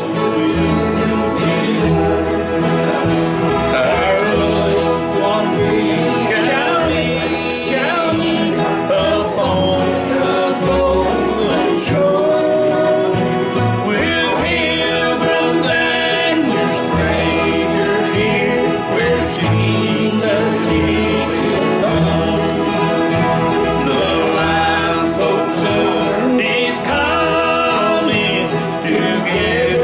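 Steel-string acoustic guitar strummed in a country gospel style, with bass notes alternating under the chords, while a man sings along.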